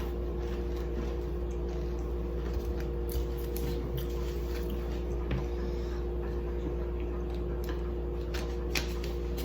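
Quiet eating at close range: faint chewing and a few soft clicks of utensils or containers over a steady low hum.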